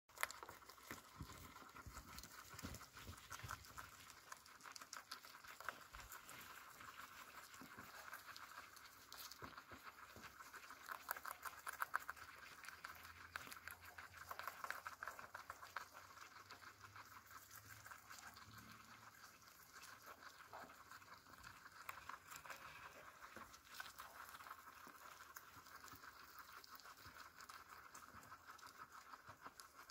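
Guinea pigs munching fresh greens: a faint, fast, steady crunching and nibbling with a few louder crunches.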